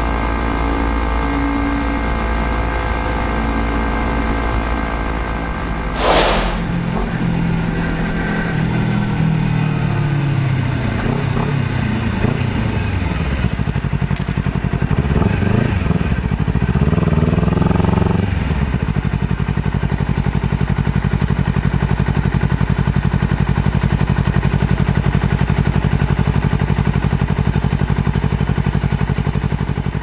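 Honda CBR250RR's parallel-twin engine running under the rider, its pitch falling and rising several times as the bike slows and changes gear, then holding a steady pitch for about the last ten seconds. A brief sharp burst of noise comes about six seconds in.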